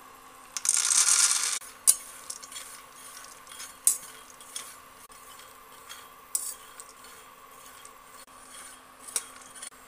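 Raw peanuts poured from a steel bowl into a hot, dry non-stick kadhai, a loud rush lasting about a second, then a spatula stirring and scraping the peanuts around the pan to dry-roast them, with a few sharp clinks. A faint steady hum runs underneath.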